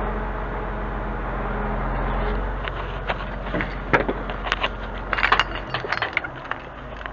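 Truck engine running steadily under the loader crane; it drops away about two and a half seconds in. Then a run of sharp metallic clinks and clanks: the crane's lifting chain and hook rattling as the slings are handled.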